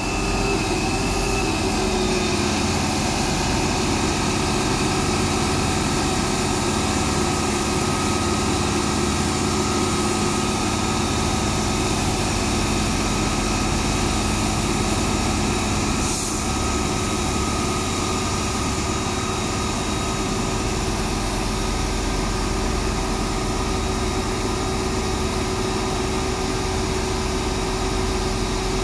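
Isuzu Giga fire truck's diesel engine running steadily at a constant speed, driving the fire pump that feeds the roof water monitor, with a hiss of spray from the water jet.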